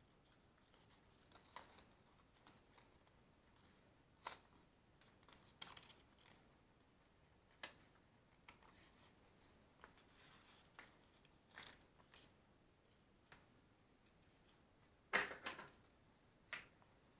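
Faint, scattered clicks and scrapes of small objects being handled over near silence, with a louder cluster of clicks about fifteen seconds in.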